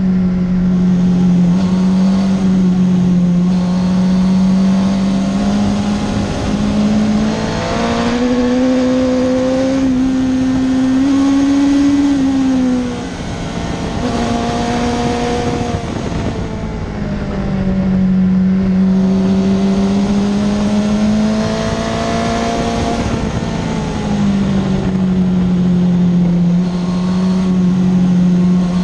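Suzuki GSX-R1000 K2's inline-four engine pulling hard at speed on track, heard from on board with rushing wind. The engine note climbs, drops sharply as the throttle is shut a little under halfway through, then climbs and holds steady again.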